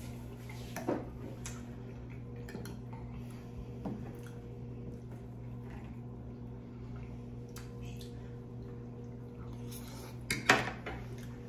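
Metal forks clinking against a glass baking dish of pasta: a light clink about a second in, another about four seconds in, and a louder clatter near the end, over a steady low hum.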